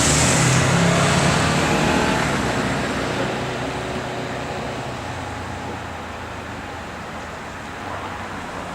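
A passing vehicle fading away over the first few seconds, leaving a steady low hum of road traffic.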